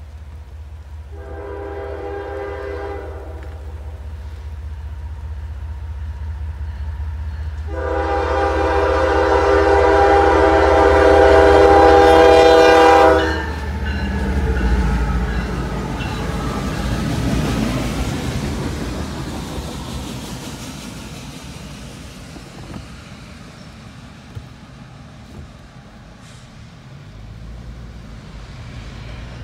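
CSX freight train's lead GE ES44AH diesel locomotive blowing its air horn, several notes at once: a short blast, then a long blast of about five seconds that is the loudest thing heard. The locomotives and cars then rumble past close by and fade away.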